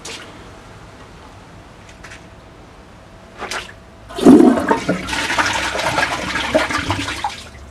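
1974 American Standard front-trap toilet: a short knock about three and a half seconds in, then water rushing from the tank into the bowl for about three seconds, tapering off. It is a failed flush that does not clear the bowl, which the owner puts down to the handle's chain being poorly hooked.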